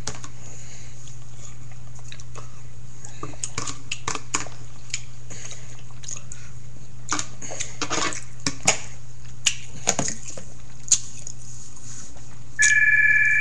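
Eating sounds: scattered small clicks and chewing over a steady low hum. About a second before the end, a phone starts to ring with a steady two-tone ringtone.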